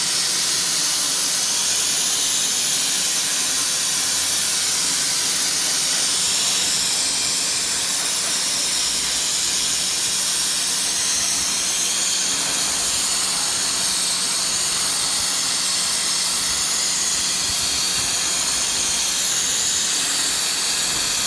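CNC milling machine running while cutting Hytac foam: a steady, even hiss over a low constant hum, with no pauses or changes.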